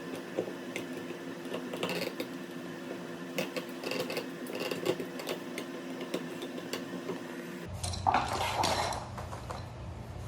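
Light metallic clicks and scrapes of a new electrical outlet being screwed back into its wall box, over a steady low hum. A louder rustling clatter comes near the end.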